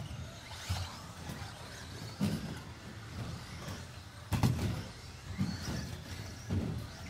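Radio-controlled off-road buggies racing round an indoor track: a steady background of motors and tyres, broken by a series of thuds from cars landing jumps and hitting the track. The loudest thud comes about four and a half seconds in.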